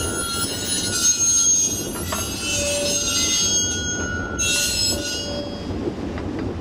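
Steel wheels of a former Toronto PCC streetcar squealing against the rails as it turns on curved track, several high shrill tones at once over the car's low rumble. The squeal dies away about five and a half seconds in.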